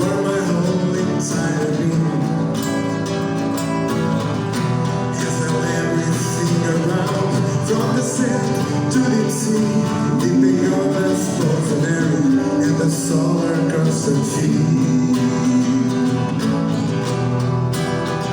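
Live band playing an instrumental passage of a song, led by guitar.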